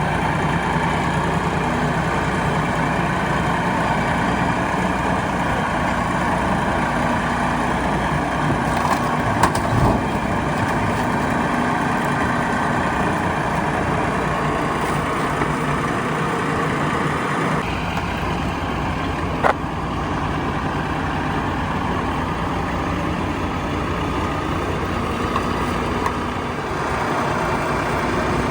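An engine running steadily at idle, with two short knocks, one about ten seconds in and one about twenty seconds in.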